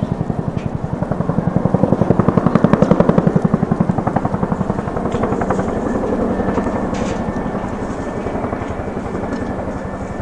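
Helicopter passing overhead: a fast, even rotor beat, loudest two to four seconds in and slowly fading after.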